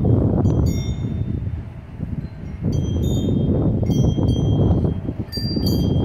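Wind chimes tinkling irregularly over a loud, gusty rush of storm wind that eases briefly twice.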